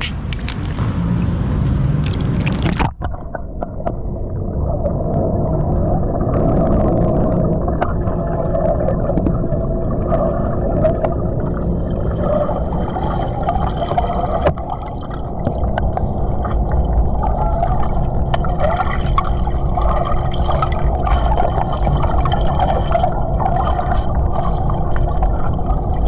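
Water noise above the surface, then about three seconds in the sound turns suddenly muffled as the microphone goes under the water of a swimming pool. Underwater there is a steady hum and low rumble with scattered clicks and gurgles as a man drinks from a bottle underwater.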